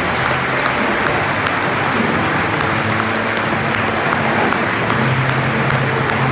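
Football stadium crowd making a steady din of clapping and many voices.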